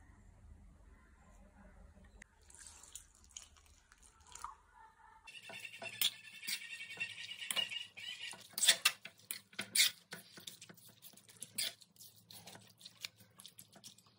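A metal spoon scraping and clicking against a metal kadai as raw squid pieces are mixed with spices and a garlic-shallot paste, with wet stirring sounds. The first few seconds are faint; from about five seconds in, the scrapes and clicks come thick and fast.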